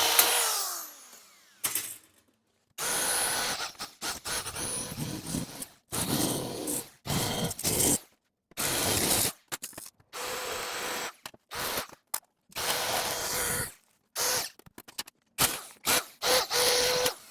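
Power nibbler chewing through sheet steel, stopping and starting many times in bursts of a second or so, with a faint motor whine under the cutting noise.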